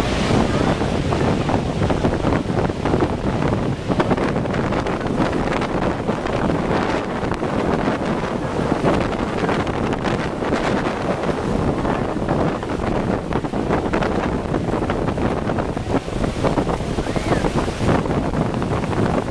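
Steady roar of the American Falls pounding onto the rocks, heard from a tour boat, mixed with the rush of river water and wind buffeting the microphone.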